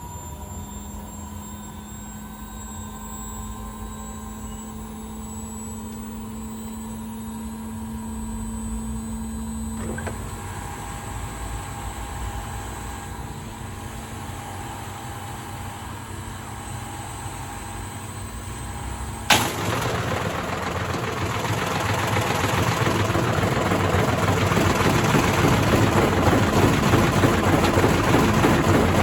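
Indesit IWDC6105 washer-dryer with its motor hot-wired and a load of bricks in the drum, spinning up with a steady motor hum. About two-thirds of the way in, a sharp crack, then the bricks banging rapidly and hard inside the drum, growing louder as it runs on.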